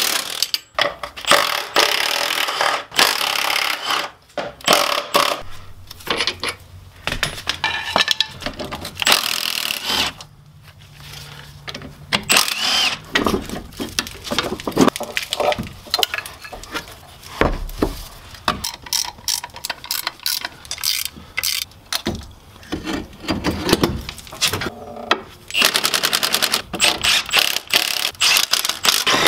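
Metal clanks and clicks of hand tools on a car's front strut-to-knuckle bolts as the eccentric camber bolt is set. Near the end comes a rapid hammering rattle from a Milwaukee M12 Fuel cordless impact wrench running a bolt tight.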